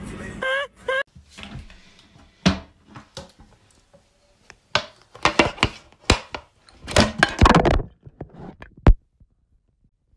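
Irregular knocks and thumps in a small room, bunched together between about five and eight seconds in, with a short pitch-bending vocal cry about half a second in.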